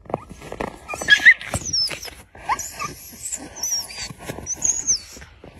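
Wolves whining in high, thin squeals, several short squeaks that rise and fall, amid rustling and soft knocks of play in the snow.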